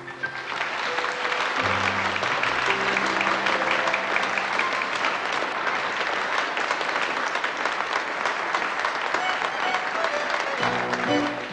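Studio audience applauding at the end of a song, with the orchestra still playing underneath. The applause dies away about ten and a half seconds in as the orchestra starts the next song's introduction.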